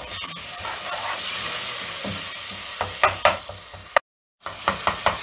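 Onion and tomato masala sizzling in hot oil in a pot while a wooden spoon stirs it, the spoon strokes clicking now and then. The sound cuts out briefly near the end, then the strokes come quick and regular, about four a second.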